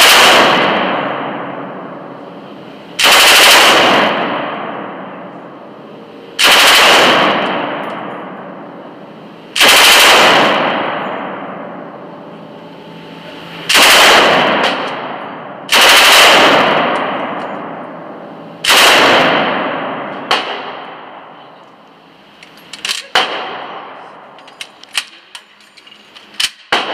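An M249 SAW belt-fed light machine gun firing seven short bursts of automatic fire from its bipod, each burst about a second long and a few seconds apart, with heavy reverberation from the indoor range. After the last burst come a few scattered sharp clicks and metallic clanks.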